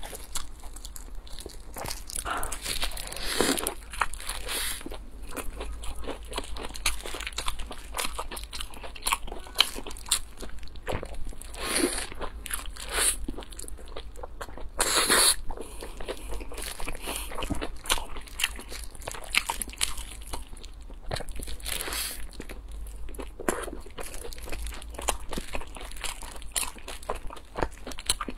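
Close-miked biting and chewing of a soft-bun burger filled with cabbage and creamy sauce: irregular crunches and crackles of food being eaten.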